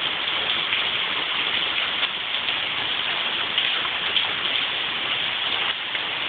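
Hail falling with rain onto a wet concrete driveway: a dense, steady patter of many small hits.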